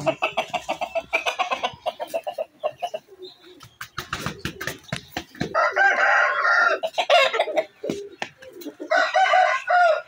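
Rooster crowing, with rapid clucking in the first couple of seconds and crows around the middle and again near the end.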